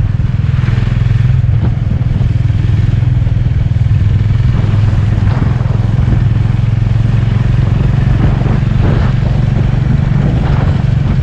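Single-cylinder 350 cc motorcycle engine running at a steady cruise, heard from the rider's position with steady wind and road noise over it. Occasional light clatter.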